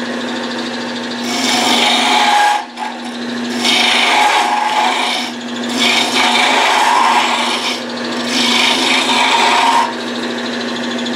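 Wood lathe running with a steady hum while a gouge cuts a spinning spalted wood blank, rounding it over, in four rough, shaving passes of one and a half to two seconds each.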